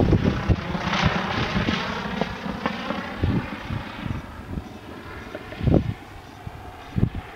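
Wind buffeting the microphone in irregular low gusts, over a rushing noise that fades away over the first few seconds.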